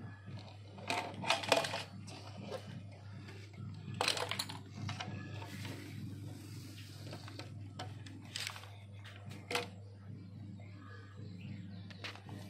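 Plastic toy cars and trucks clattering as they tip into a bowl of foam balls and knock against the toys already piled there. The clatters come in short groups a few seconds apart, the loudest about a second in, over a steady low hum.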